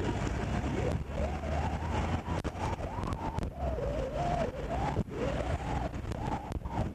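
Vehicle siren wailing in quick repeated rise-and-fall sweeps over the steady rumble and wind noise of a moving vehicle on the road.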